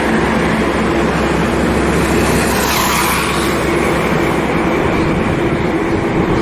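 Loud, steady jet noise from an Air India Bombardier CRJ-700 regional jet on its landing at the airport, with a hissing swell about three seconds in.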